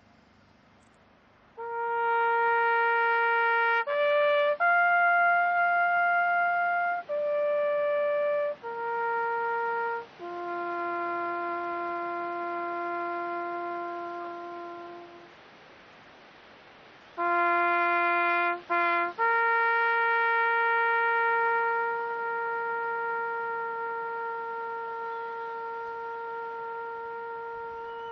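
Solo trumpet playing a slow bugle call: long held notes stepping up and down through the few bugle notes. It pauses about halfway, then comes back with two lower notes and a long held final note.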